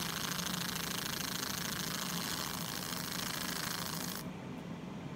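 Fiber laser cutting through thin jewelry metal sheet: a steady hiss over a lower machine hum. The hiss cuts off suddenly about four seconds in, leaving the quieter hum.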